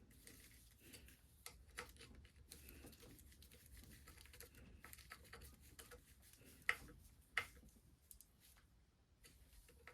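Faint, scattered light clicks and handling noises from tools and engine parts being worked on, with two sharper clicks about seven seconds in.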